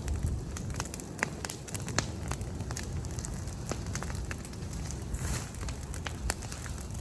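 Fire crackling and popping in irregular sharp cracks over a steady low rumble.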